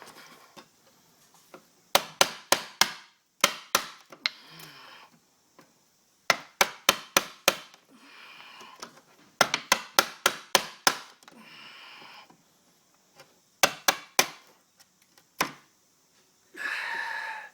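Hammer driving a chisel into a hardwood door jamb in quick runs of sharp blows, about two to eight strikes at a time, with short rasping noises between the runs, as wood is cut away where the door latch rubs.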